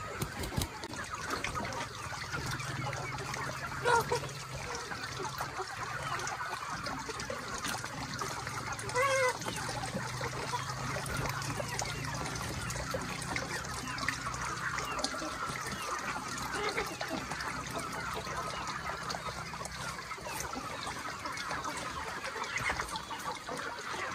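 A large flock of young chickens clucking and calling without pause. A louder call stands out about four seconds in, and another about nine seconds in. A low steady hum runs underneath through most of it.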